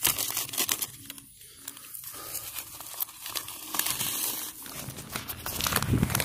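Close crinkling, crackling rustle made of many small clicks, like foliage or a plant label being handled.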